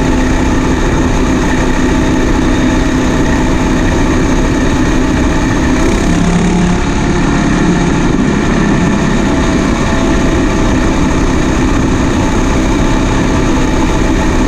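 Combine harvester running steadily with its engine and machinery droning, with a brief shift in pitch about six seconds in.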